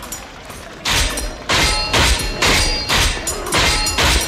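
A rapid volley of firework shells bursting, loud bangs about two a second, starting about a second in.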